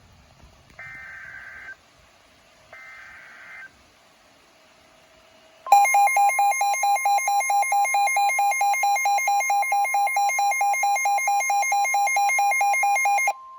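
Weather radio's Emergency Alert System signal heralding a tornado warning. First come three screeching digital data bursts, about a second each. About six seconds in, a loud, rapidly pulsing alarm beep starts over a steady alert tone and keeps going until near the end.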